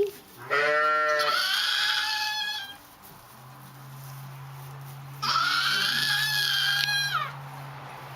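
An animal bleating twice: two long, loud calls, the first wavering in pitch and the second higher and steadier. A low steady hum sits underneath from about three seconds in.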